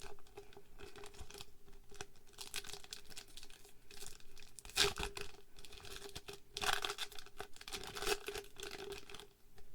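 Foil wrapper of a Japanese Pokémon card booster pack being torn and crinkled open, a run of crackly rustles with louder tears about halfway through and again a little later. The rustling stops shortly before the end.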